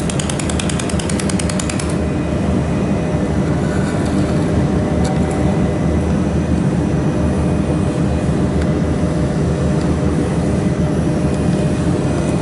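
Mould laser welding machine running with a steady hum. Its pulsed laser fires in a rapid ticking, about ten pulses a second, which stops about two seconds in.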